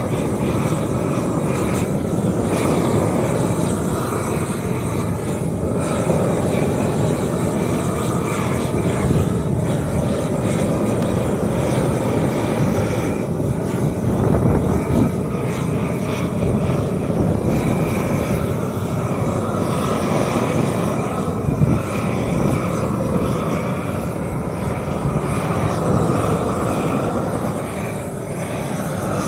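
A steady, loud roar, like a burner or engine running without a break, from the asphalt repair work.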